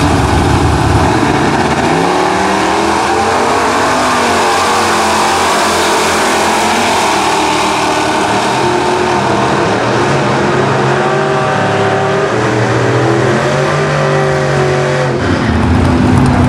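Two 1960s drag cars launching from the start line and accelerating down the strip side by side. The engine pitch climbs several times, each climb broken off as they shift gears. Near the end a louder, steady low engine drone comes in close by.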